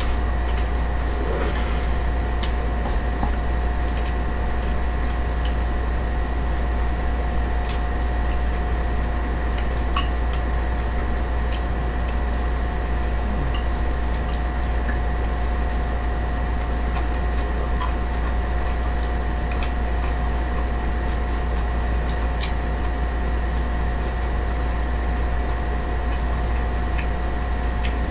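A steady low background hum with two faint steady tones over it, and scattered soft clicks and small noises of chopsticks and eating.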